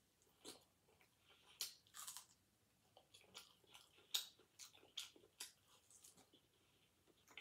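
Someone biting and chewing fried seafood held in the hand: faint, irregular crisp crunches and clicks, with one sharper click near the end.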